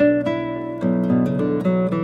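Acoustic guitar music: plucked notes and chords left ringing over one another, with fresh notes struck right at the start and again a little under a second in.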